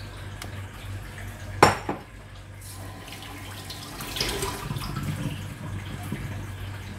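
Kitchen clatter of a pot and utensils: one sharp clank about two seconds in, with a smaller knock right after, then softer clattering and scraping. A steady low hum runs underneath.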